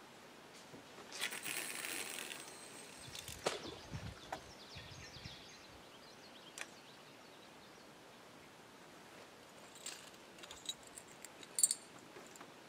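Fishing line whizzing off the reel during a cast for about a second, followed by a thump and, later, scattered sharp clicks from the reel.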